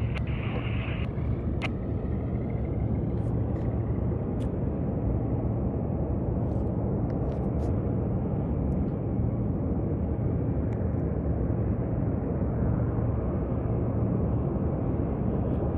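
Cessna 152's four-cylinder Lycoming engine running at low power through the landing, a steady low drone.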